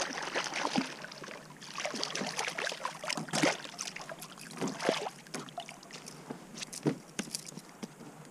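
A hooked white bass thrashing and splashing at the water's surface beside a kayak as it is brought in and landed by hand: a run of irregular splashes and slaps, dying down near the end.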